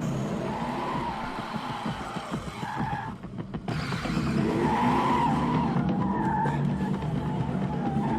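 Car pulling away hard, its engine running under a wavering tire squeal.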